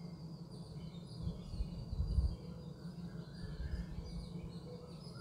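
A spatula stirring chicken pieces in a thick sauce in a non-stick pan, giving low dull knocks and thuds, loudest about two seconds in. Small birds chirp again and again in the background.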